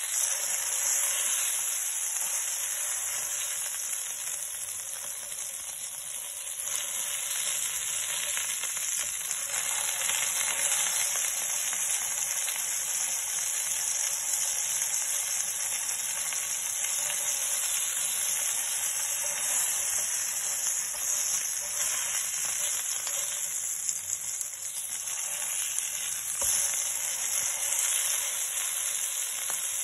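A patty sizzling steadily as it fries in shallow oil in a nonstick wok.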